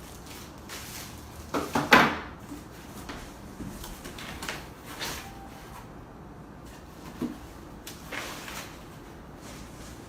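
Packaging being handled while unboxing a loudspeaker: a few sliding scrapes and knocks of cardboard and packing material, the loudest about two seconds in.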